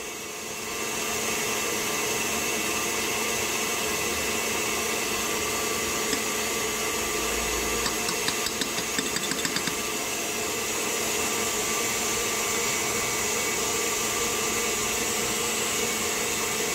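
KitchenAid Heavy Duty stand mixer running at high speed, its wire whisk beating egg whites and sugar into meringue: a steady motor hum with several held tones. A brief run of light ticks comes about eight seconds in.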